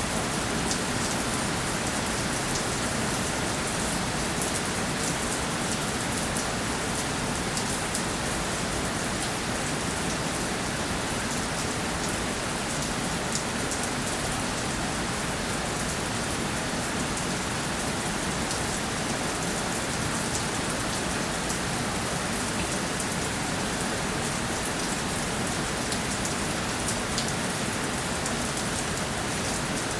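Steady rainfall, a dense even hiss with many small drop ticks.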